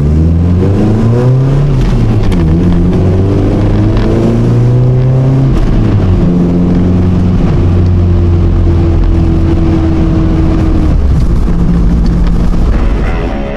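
2001 Toyota Tacoma's engine and exhaust heard from inside the cab under acceleration. The pitch rises, drops at a gear change, rises again, drops at a second shift, then holds steady at cruise. The sound comes through the old exhaust with a Cherry Bomb muffler, which is leaking and rusted through.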